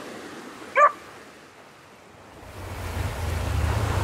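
Small waves washing on a sandy beach and rocks, with wind buffeting the microphone that builds from about halfway through. Just under a second in, a brief chirp-like sound is the loudest thing heard.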